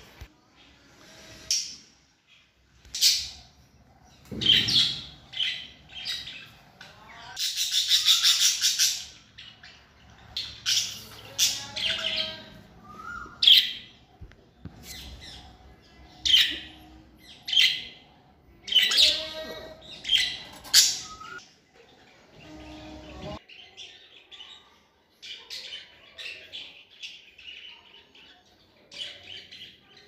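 Budgerigars chirping and squawking in short high calls, with a longer harsh chatter about eight seconds in; the calls grow quieter and sparser in the last few seconds.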